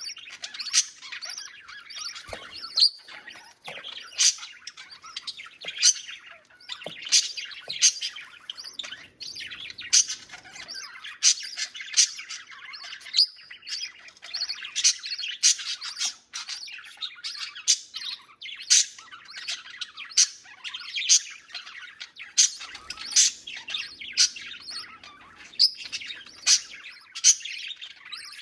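Budgerigars chirping continuously, with a loud, sharp chirp about once a second over steady chatter. These are the begging calls of budgie chicks being fed by their mother.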